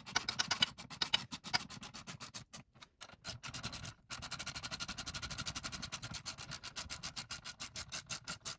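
Hand socket ratchet clicking rapidly as bolts are run down into a seat bracket: quick uneven strokes with a couple of short pauses, then a long, even run of fast clicks from about four seconds in.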